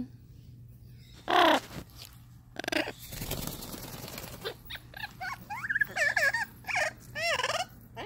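Amazon parrot squawking: a loud call about a second and a half in and a shorter one after it, a flutter of wingbeats about three seconds in as it flaps up, then a run of sweeping, rising-and-falling calls.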